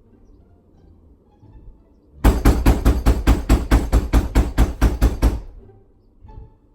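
Rapid, loud banging on a door, about five blows a second for about three seconds, pounding imitating a police knock.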